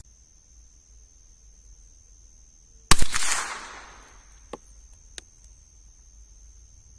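.22 LR rifle fires a single shot about three seconds in, its report echoing away over about a second. Two faint clicks follow.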